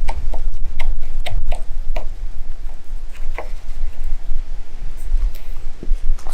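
Wood campfire crackling, with irregular sharp pops a few times a second over a steady low rumble.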